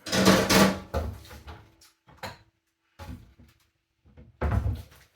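Kitchen cupboard opening and shutting while a cooking pan is taken out: a loud clatter in the first second, a few light knocks, and another bang near the end.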